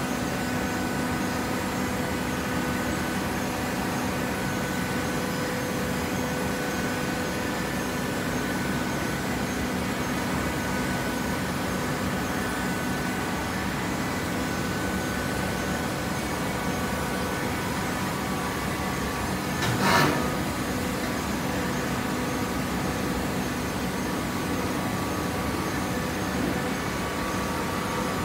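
Horizontal hydraulic baler running: a steady machine hum from its motor and hydraulic pump. A single sharp knock about two-thirds of the way through.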